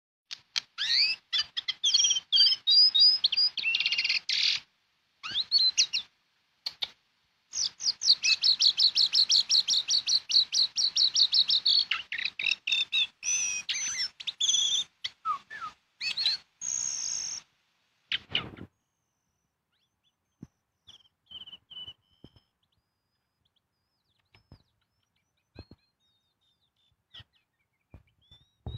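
Female jongkangan calling: bursts of high chirping notes, including a long rapid run of about five repeated notes a second from roughly eight to twelve seconds in. It is a female calling for a male. After about eighteen seconds it falls almost quiet, with only a few faint scattered notes.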